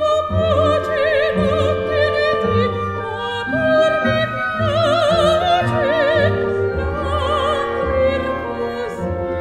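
Operatic classical music: long notes sung with a wide vibrato over orchestral accompaniment.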